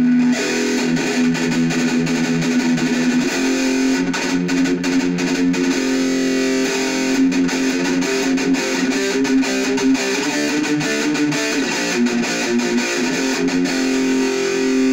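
Electric guitar played through a Black Truck distortion pedal into an Orange Micro Dark hybrid tube amp and PPC108 speaker cab, with the compressor pedal switched off: heavily distorted, held ringing notes and chords that change every second or so.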